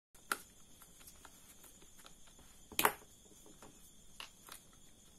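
Small sharp clicks and taps of a screwdriver and metal parts on a Shimano Stradic CI4+ spinning reel's rotor being taken apart, with a loud click about a third of a second in and the loudest near the middle, over a faint steady high-pitched tone.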